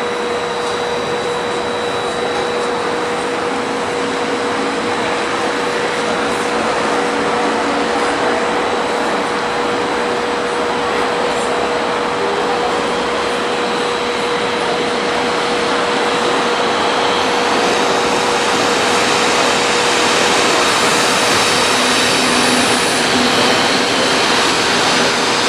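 Fiat ALn 663 diesel railcar running as it rolls slowly in to stop at the platform: a steady rushing noise with a steady whining tone that fades out about two-thirds of the way through, the noise growing louder and hissier near the end.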